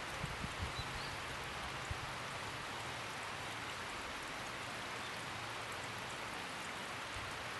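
Steady outdoor hiss like light rain falling, with a few soft low thumps in the first two seconds.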